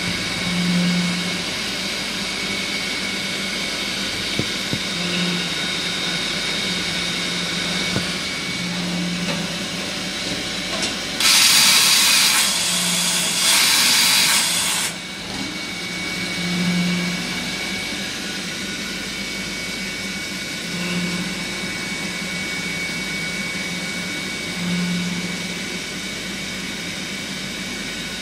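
SOWIN SZ-125E2 Swiss-type CNC lathe running with coolant flowing: a steady high whine over machine noise, with a low hum that swells about every four seconds. About halfway through come two loud bursts of rushing noise, each a second or two long.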